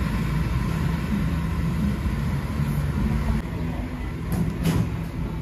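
Low, steady rumble of motor traffic, with two sharp clinks a little over four seconds in.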